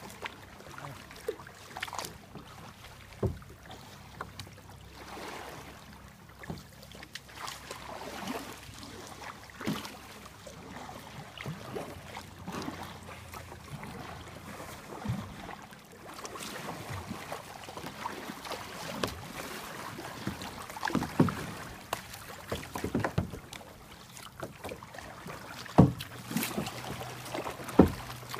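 Kayak paddling on a shallow creek: paddle blades dipping and splashing in the water at an irregular pace over a steady wash of moving water, with sharper splashes or knocks now and then, loudest near the end.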